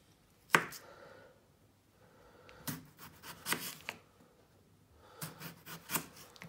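A kitchen knife slicing through a raw potato and knocking down onto a plastic chopping board. There is a sharp knock about half a second in, then a group of crisp cuts around three seconds in and another just past five seconds.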